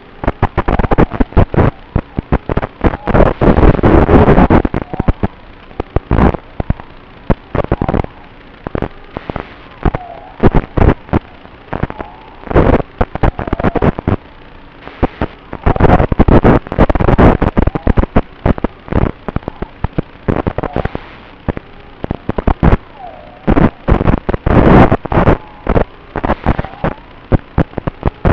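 Onboard audio of an FPV racing quadcopter in flight: loud, irregular, distorted crackling bursts. A faint motor whine rises and falls beneath them in places.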